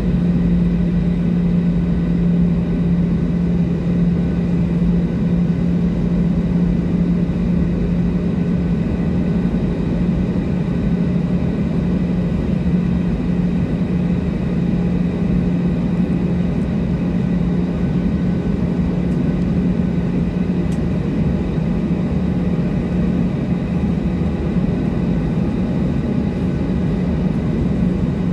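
Steady drone inside the cabin of a Boeing 737-700 on the ground, with a strong low hum and fainter higher tones running without change.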